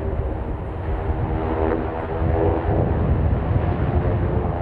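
Propeller engines of a four-plane warbird formation droning overhead during an aerobatic smoke pass, with the pitch bending about two seconds in as the planes move past.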